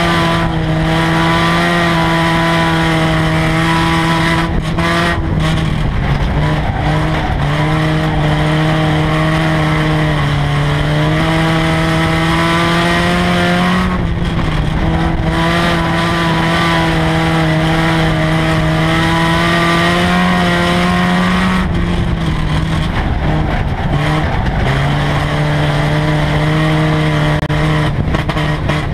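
A four-cylinder race car engine running hard at high revs, heard from inside the car. Its note dips and climbs back several times as the throttle is lifted for the turns and reapplied down the straights.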